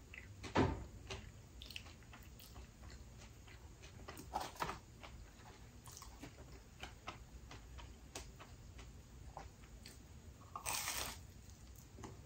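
Close-up chewing and biting of crisp pizza crust: scattered small crunches and mouth clicks, with a louder crunchy bite near the end.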